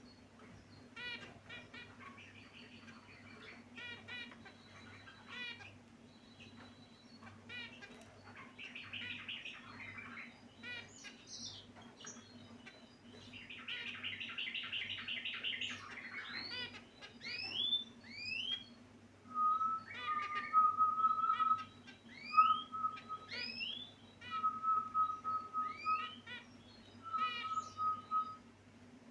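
Several caged finches chirping and calling: quick strings of short chirps and buzzy trills, then rising upslurred calls and a series of flat, level whistled notes in the second half, which is louder. A steady low hum runs underneath.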